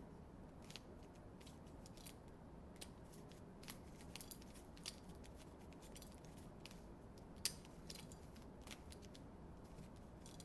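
Faint, irregular plastic clicks of a new Shengshou 3x3 mirror cube being turned by hand, the loudest about seven seconds in.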